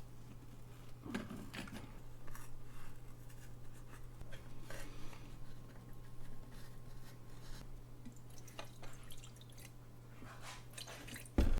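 Scattered small scrapes, taps and clicks of hand tools working the clock's leather travel case, over a steady low hum. The handling comes in irregular clusters, with the busiest stretch near the end.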